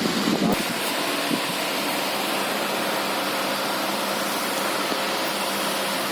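Steady hiss of background noise with a faint hum, with a brief low sound in the first half second.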